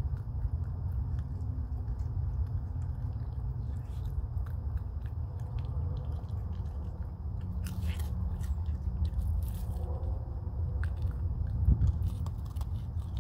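Raccoon crunching and chewing dry kibble: a run of small crisp crunches over a steady low rumble.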